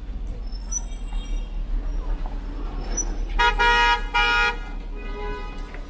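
A vehicle horn honks twice in quick succession, about three seconds in, over street traffic noise.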